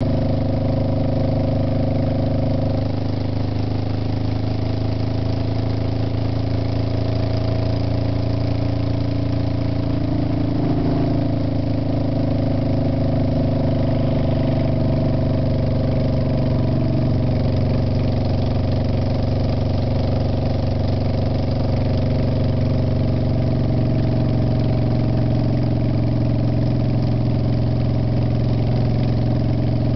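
Engine of the camera vehicle running steadily at cruising speed, its pitch shifting slightly a couple of times, over a constant rush of road and wind noise.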